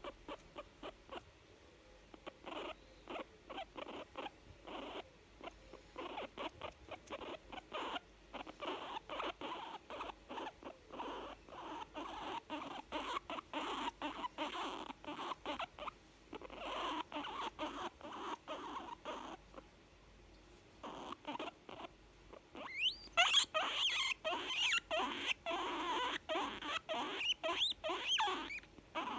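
Young guinea pig making sounds of contentment: a rapid series of short, quick pulses in runs with brief pauses, and a run of rising squeaks near the end.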